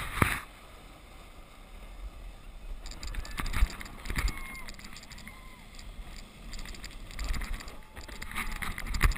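Snow tube sliding down a groomed snow slope: a steady scraping hiss of the tube on the snow with wind on the microphone, and a few knocks as it goes over bumps, the sharpest about three and a half seconds in and near the end. Faint distant voices call out now and then.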